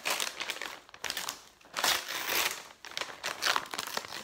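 Shiny gift wrapping paper and tissue paper crinkling and tearing as a present is unwrapped by hand, in a run of irregular bursts, loudest about two seconds in.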